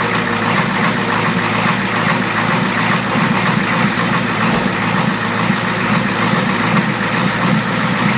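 1986 Ford F250's 6.9-litre V8 diesel engine idling steadily, just started from cold on glow plugs and block heater, with its number 8 injector still leaking at the seat.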